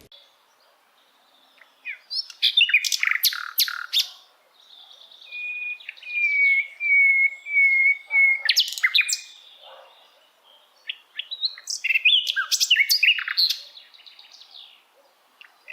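Birds singing: several bursts of quick high chirps, with a short run of repeated whistled notes in the middle.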